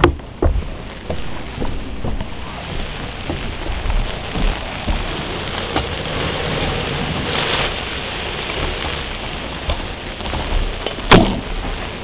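Water from a garden hose spraying and pattering on a wooden deck around a turkey fryer fire: a steady rush with scattered ticks, and one loud knock about eleven seconds in.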